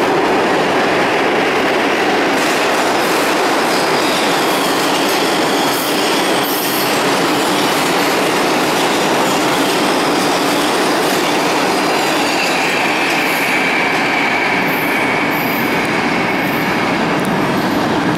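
NYC Subway R142A train pulling out of a station: a steady loud rumble of steel wheels on rail, with a high wheel squeal rising over it in the second half.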